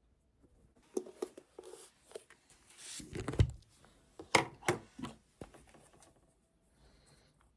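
Objects being handled: a run of taps, clicks and rustles, with a heavier thump about three seconds in and a few sharp knocks after it.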